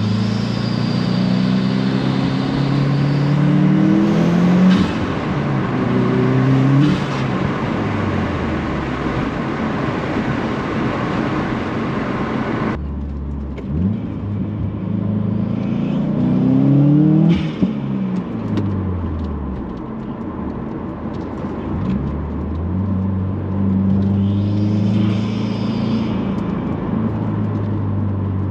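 Turbocharged FA20 flat-four of a 2018 Subaru WRX, fitted with a cast aluminum turbo inlet, cold air intake and charge pipe, pulling through the gears: the engine note climbs during each pull and drops at each shift. A high turbo whistle rises over it near the start and again near the end.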